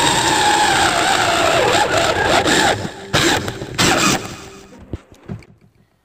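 Electric drill boring a small hole into a steel nut welded onto a flat steel strip. The motor's whine falls steadily in pitch as the bit loads up. Then come two short bursts about three and four seconds in, and the sound winds down to silence.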